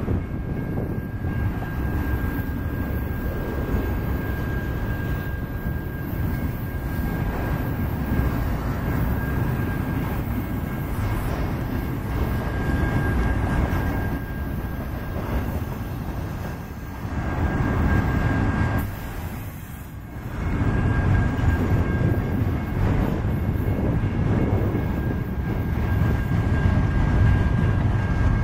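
Autorack freight cars rolling slowly past, a steady low rumble of steel wheels on rail with a thin, steady high tone running over it. The rumble dips briefly about twenty seconds in, then comes back louder.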